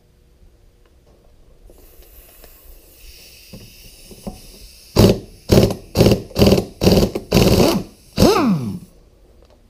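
Air impact wrench hammering in about seven short bursts to break a nut loose on a hydraulic lift cylinder; the last burst winds down with a falling pitch. A steady hiss of air comes before the first burst.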